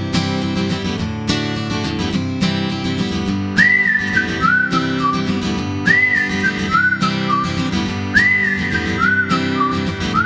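Background music: strummed acoustic guitar, joined about three and a half seconds in by a whistled tune that repeats the same short phrase, a rising note then a few falling ones, every couple of seconds.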